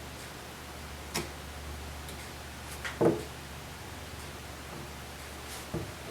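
Light handling clicks and knocks of small parts and tools on a workbench, three separate ones with the loudest about three seconds in, over a steady low hum.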